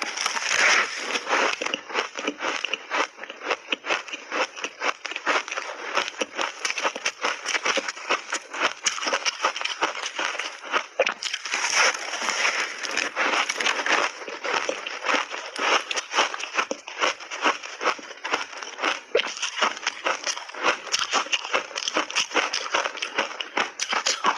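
Ice layered with matcha tea and milk powder being chewed: a continuous, dense run of crackling crunches.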